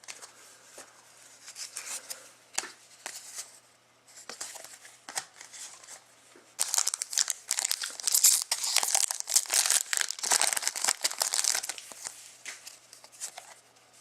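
Trading-card pack wrapper being handled and torn open: light crinkles at first, then about five seconds of dense, louder crackling and crumpling of the wrapper, dying down to light rustles near the end.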